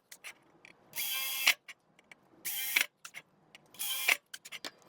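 A small tool mechanism worked in short whirring strokes, three times about 1.3 s apart, each stroke ending in a sharp click.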